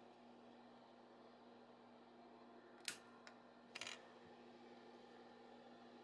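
A 3D-printed plastic Benchy is knocked loose from the print bed: a sharp click about three seconds in, then a short rattle of light plastic taps just before four seconds as it topples onto its side. A faint steady hum sits underneath.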